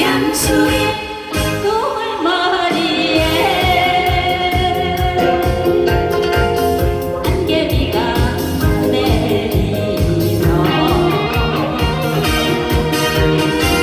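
A woman singing a Korean song over music with a steady beat. The singing comes in about two seconds in.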